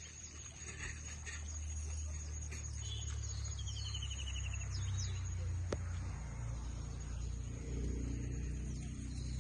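Outdoor ambience with birds chirping, including one short trilled call a few seconds in, over a steady low rumble and a thin steady high tone. There is a single sharp click about halfway through.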